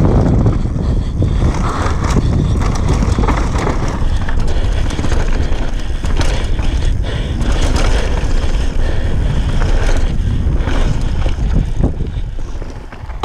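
Wind buffeting the microphone of a camera on a downhill mountain bike at speed, with the tyres rolling over dirt and the bike rattling and knocking over bumps. It eases off near the end as the bike slows.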